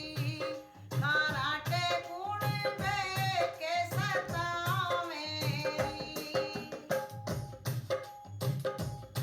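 A woman singing a Hindi comic folk song to a hand drum, her voice sliding and ornamenting the melody, then holding a long note about five seconds in. After that the drum keeps a steady beat of about two strokes a second under sustained instrumental tones.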